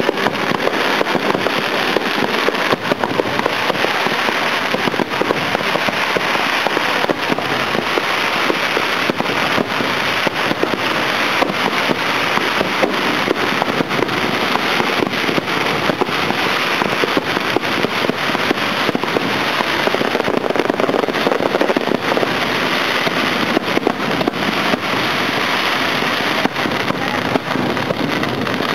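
Fireworks display in a dense barrage: rapid, overlapping cracks and pops over a continuous crackling rush, without letup.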